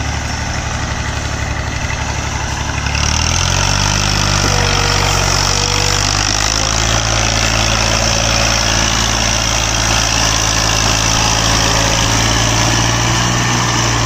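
Massey Ferguson tractor's diesel engine hauling a trolley heavily loaded with sugarcane. It runs at low revs, revs up about three seconds in and climbs again around six seconds, then holds steady high revs under the load.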